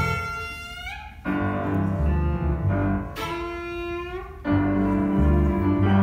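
Instrumental introduction to a song: piano chords with a deep bass line under a sustained violin melody that swells and bends in pitch twice.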